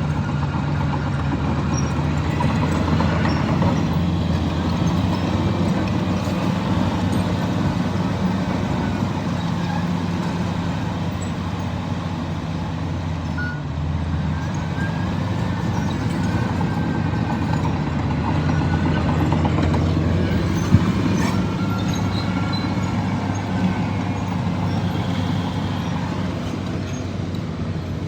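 Komatsu bulldozer's diesel engine running steadily under work, with one sharp click about three-quarters of the way through.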